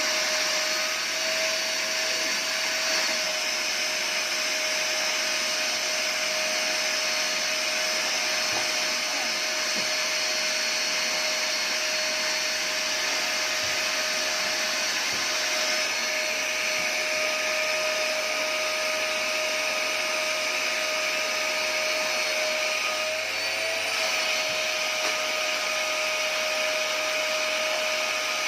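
Olsenmark vacuum cleaner running steadily: a continuous motor whine over a hiss of rushing air. The pitch and level briefly dip and wobble about three-quarters of the way through.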